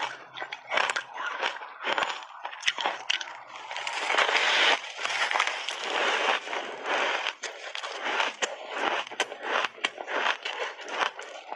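Close-miked chewing of crushed ice coated in matcha and milk powder: dense crunching and crackling with sharp cracks, heaviest and most continuous from about four to seven seconds in.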